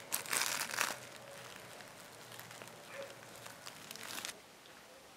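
Plastic crinkling and rustling as a kitten paws and shifts about on it. It is loudest in the first second, crackles on and off after that, and stops about four seconds in.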